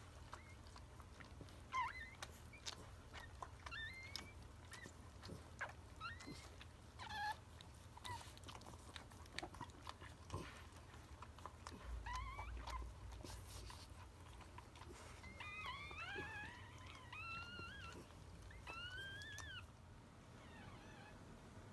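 Newborn puppies squeaking and whining: faint, short, high-pitched cries scattered throughout, with a cluster of them about three-quarters of the way through.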